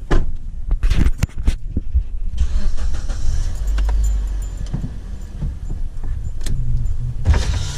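A few sharp knocks and clicks in the first second and a half, then a car's low, steady rumble as it runs.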